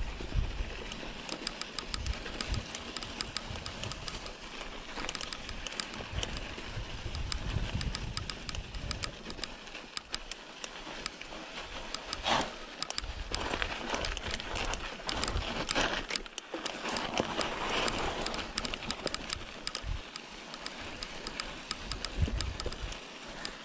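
Mountain bike rolling down a dry dirt singletrack: tyres crunching over loose dirt and the bike rattling over bumps, with frequent sharp ticks. It gets louder and rougher over a rocky stretch around the middle.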